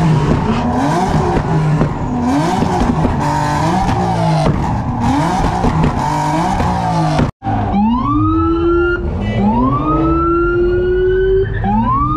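A car engine revving up and down over and over under a loud hiss of spinning, squealing tires: a burnout. After a brief break about seven seconds in, a siren rises in pitch three times, each wail climbing and then levelling off.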